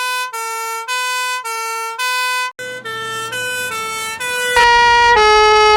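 British two-tone police siren alternating between a high and a low pitch, about one high-low cycle a second, in three stock sound-effect recordings played back to back. The recording changes about two and a half seconds in and again near the end. The last one is louder, with a low rumble under it.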